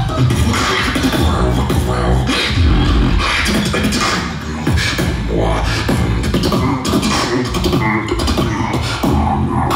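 Solo beatboxing into a handheld microphone through a stage PA: deep sustained vocal bass under sharp mouth-made drum hits in a steady rhythm.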